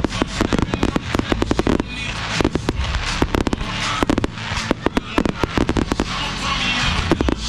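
Rapid barrage of aerial fireworks bursting, many sharp bangs in quick, irregular succession, with music playing underneath.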